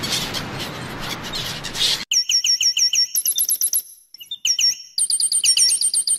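Gulls on open water: a dense hiss of water and flapping with faint calls. About two seconds in, this gives way abruptly to rapid high-pitched chirps in quick runs of several notes, broken by short pauses.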